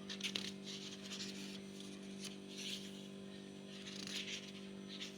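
A pause in the speech filled with a steady electrical mains hum, with faint rubbing and scratching noises scattered through it.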